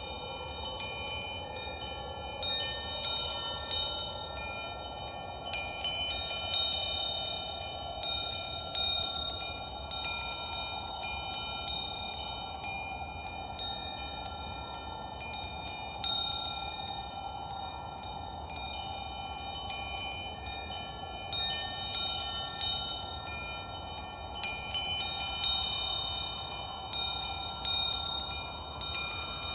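Wind chimes ringing, struck at uneven intervals so that their overlapping tones sustain, over a soft, steady wash of sound.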